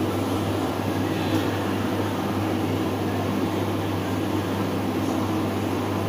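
A steady mechanical hum with a constant low drone and hiss, unchanging throughout.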